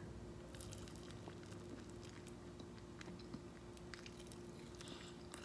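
Faint biting and chewing of a fried chicken drumstick, with scattered small mouth clicks over a faint steady hum.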